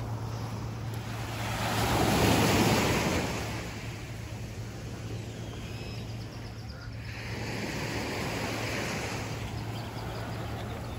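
Small waves breaking and washing up on a sandy beach. The wash swells loudest about two seconds in and again about eight seconds in.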